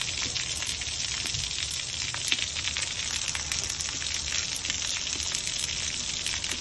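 Rainwater pouring through a leaking ceiling and splattering onto a wet tiled floor: a steady hiss with a dense crackling patter.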